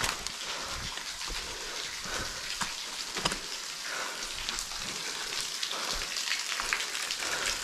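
A thin trickle of water running and dripping from a hole in a rock bluff, heard as a steady patter with many small drip-like ticks. A few footsteps thud on loose rocks.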